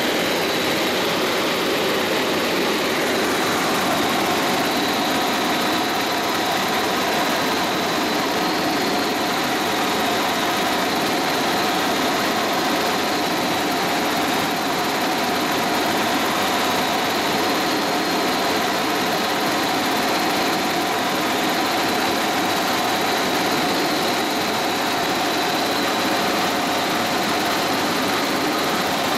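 Helicopter engine and rotor noise heard inside the cockpit in steady flight: an even, unbroken drone with a constant high whine.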